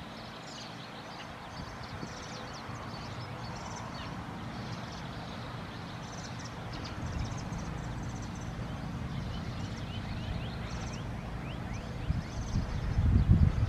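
Small birds chirping in short, repeated calls, over wind rumbling on the microphone that swells into a strong gust near the end.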